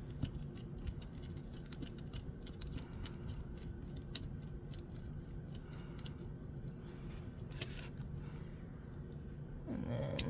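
Faint, irregular light clicks and ticks of a small driver turning out the tiny screws of a fidget slider, with small parts being handled. A steady low hum runs underneath.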